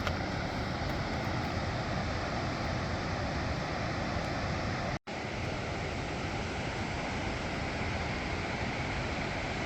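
Steady rushing noise, broken by a brief dropout about halfway through.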